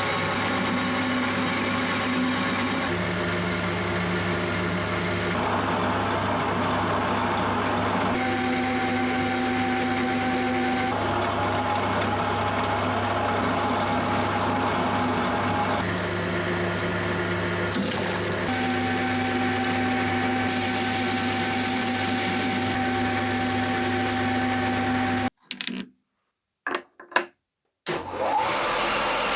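Machine tool motor running steadily with a hum, in a series of short cut clips where the pitch and texture change every few seconds. Near the end it briefly drops out to near silence, with a few clicks.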